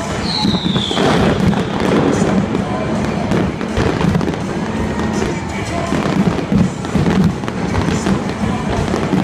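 Fireworks bursting and crackling again and again over loud music, with a brief falling whistle about half a second in.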